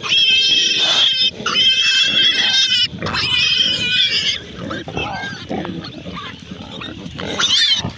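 Pig squealing: three long, loud, high-pitched squeals back to back, then quieter grunting and a short squeal near the end.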